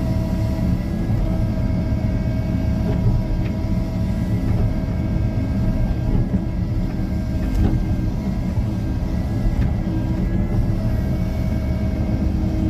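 Caterpillar 305.5E2 mini excavator's diesel engine running steadily at working revs while it digs the ditch and swings soil to the side, its pitch shifting slightly with the load.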